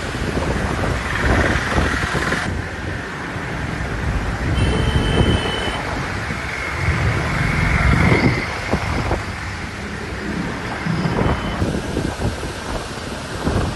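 Outdoor rushing noise of road traffic and wind, changing suddenly at edits, with a brief high tone about five seconds in.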